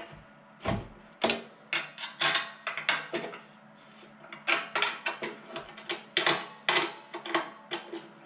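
Wrench clinking and clicking against the nuts and studs of a steel motor-mount plate as the adjusting nuts are loosened: irregular sharp metallic clicks, with a short pause about halfway.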